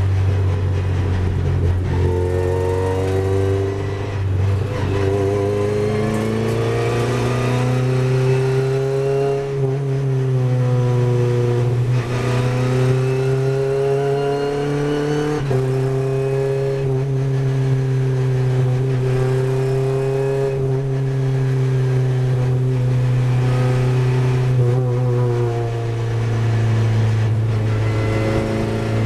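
Renault Clio Cup race car's engine heard from inside the cabin, running hard throughout. Its pitch rises and falls several times as the car accelerates and slows through slow corners, with sudden drops and jumps in pitch at gear changes a third and a half of the way in.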